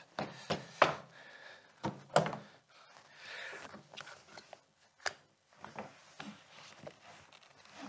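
Suitcases and their contents being handled and rummaged through: a few sharp knocks, the loudest a little under a second in, with rubbing and rustling in between.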